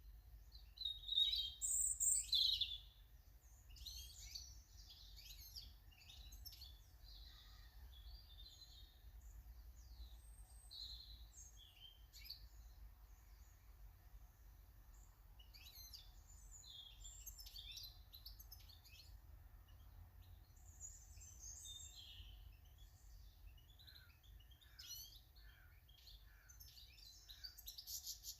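Garden birds chirping and calling, many short high chirps and trills, loudest about two seconds in, over a faint low rumble.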